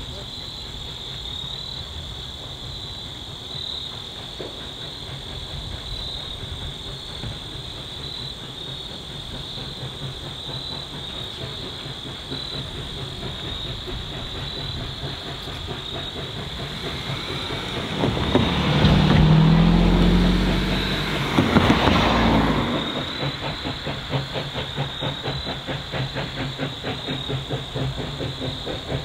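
Steam locomotive approaching slowly, its exhaust building into a steady rhythmic chuffing in the last few seconds. About two-thirds of the way through comes a loud two-part blast of steam sound lasting about four seconds. Insects chirp steadily throughout.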